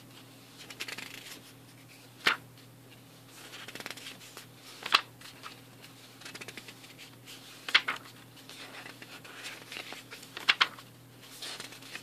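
Pages of a paper booklet being turned one after another: four sharp page flips about every three seconds, with soft paper rustling between them.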